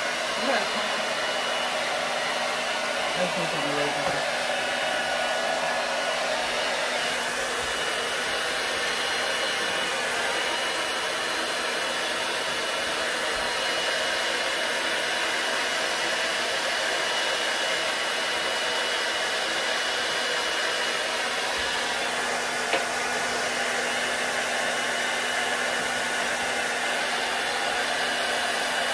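Handheld hair dryer blowing steadily.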